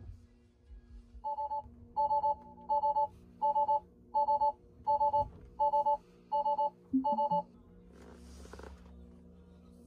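Tesla Cybertruck's alert chime beeping nine times in a steady two-tone pattern, about one and a half beeps a second, as the truck flags faults after losing its coolant: power reduced, low voltage system, rear axle steering disabled. A brief hiss follows about eight seconds in.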